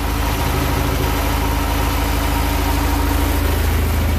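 Volvo Penta 130 four-cylinder marine engine running steadily after a tune-up, firing on its replacement distributor cap.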